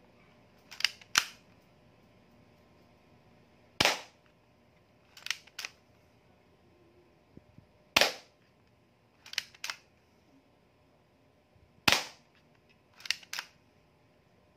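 Spring-powered airsoft M1911 pistol firing three single shots, each a sharp snap about four seconds apart. After each shot come two quicker, quieter clicks, the slide being racked back and released to cock the spring for the next shot, as a spring-type gun needs.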